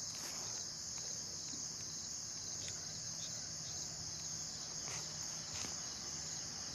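Steady, unbroken high-pitched chorus of crickets, with a faint low hum beneath and a few soft clicks.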